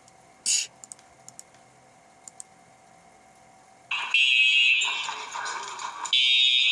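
A loud fire alarm starts ringing about four seconds in and keeps going, dipping briefly near the end. Before it there is only a brief short noise about half a second in.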